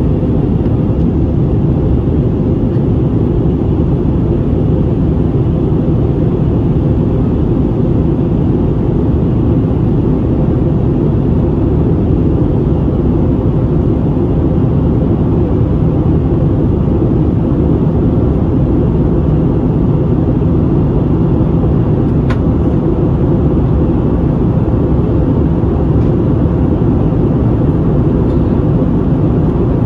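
Steady low roar inside the cabin of an Airbus A321neo in flight: the Pratt & Whitney PW1100G geared turbofan engines and the airflow over the fuselage, heard from a window seat by the wing.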